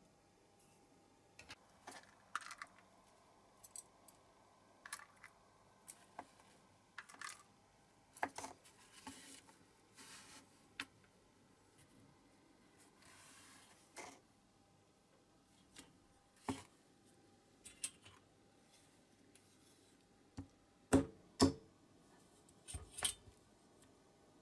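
Hand work with tweezers and small metal parts on a cutting mat: scattered light clicks and taps, a brief soft rustle about halfway, and two sharper knocks shortly before the end, followed by a couple more taps.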